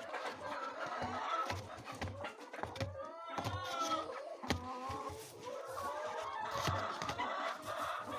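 A flock of laying hens clucking and calling over one another, with a few sharp knocks among the calls.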